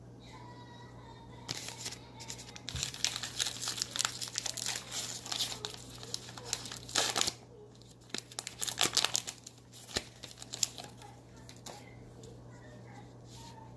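A trading card pack wrapper being torn open and crumpled by hand, in two main stretches of crinkling with a pause of about a second between them.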